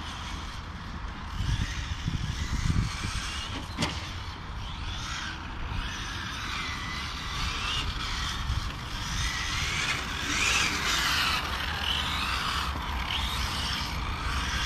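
Electric 1/8-scale RC cars (Serpent SRX8 GTe) lapping a track, their brushless motors whining up and down in pitch as they accelerate and brake, loudest about ten seconds in. There is a single sharp click just before four seconds, over a steady low rumble.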